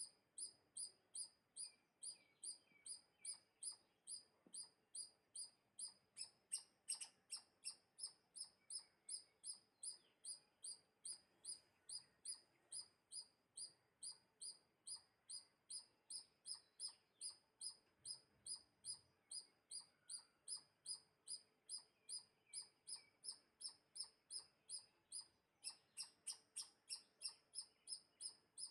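A high, sharp chirp repeated very evenly about twice a second, each note dipping slightly in pitch, with a few louder, busier chirps about seven seconds in and again near the end.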